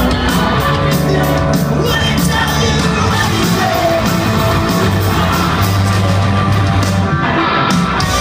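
Live rock band playing loud, with electric guitar, bass, drums and a singer's voice. The high drum clatter drops out briefly about seven seconds in, then comes back.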